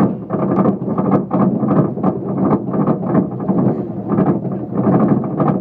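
Amusement-park ride running: a loud, rough rumble with rapid rattling and clatter throughout.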